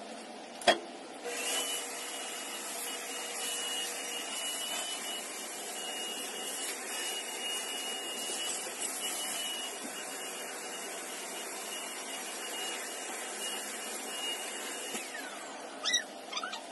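Corded handheld vacuum cleaner switched on with a click about a second in, running steadily with a high whine. Near the end it is switched off and the whine falls away as the motor spins down.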